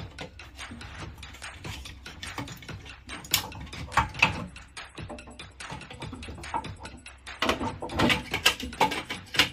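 Irregular clicking and rattling of plastic connectors and leads being handled inside a gas boiler, with louder clusters of clicks about three to four seconds in and again near the end.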